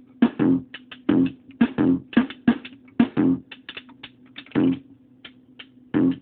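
Korg Monotribe drum pattern played through a circuit-bent Yamaha computer speaker, its gain and distortion pots making the hits crunchy, over a steady low tone. Heavy hits come in an uneven rhythm, thin out to light ticks after about three seconds, then return near the end.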